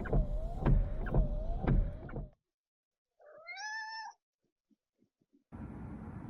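A whirring with a wavering whine and regular clicks about twice a second runs for a couple of seconds, then cuts off. After a pause a cat gives one short rising meow, and a steady background hiss comes in near the end.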